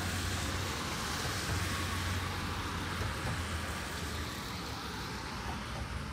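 Road traffic on wet streets: a motor vehicle's low engine rumble under the hiss of tyres on wet asphalt, easing off toward the end.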